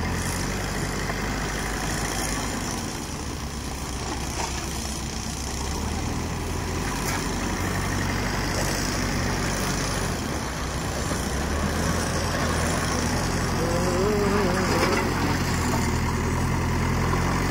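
JCB 3DX backhoe loader's diesel engine running steadily, its note shifting a few times as the loader dumps its front bucket and drives.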